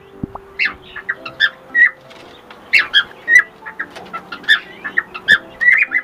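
Male cockatiel's mating call: a run of short whistled chirps, many sliding up or down in pitch, coming in quick clusters with brief gaps between them.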